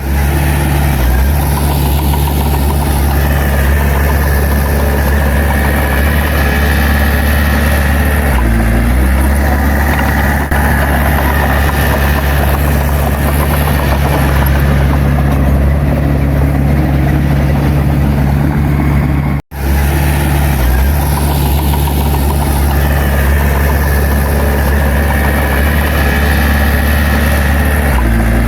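Heavy bulldozer's diesel engine running steadily, with a mid-pitched whine coming and going over it. The sound cuts out for an instant about two-thirds of the way through.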